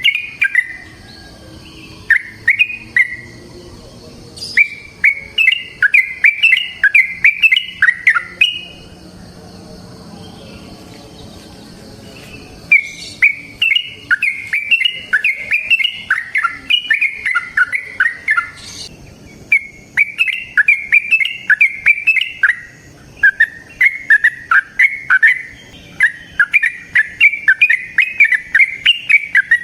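Yellow-vented bulbul (trucukan) singing long runs of rapid chirping notes, several a second, with a pause of a few seconds about nine seconds in before the runs resume.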